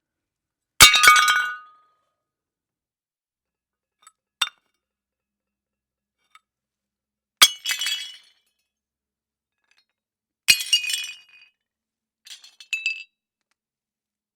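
Plates smashing one after another: three loud crashes a few seconds apart, each followed by a brief clatter of pieces, with a lone small clink between the first two and a few lighter clinks of shards near the end.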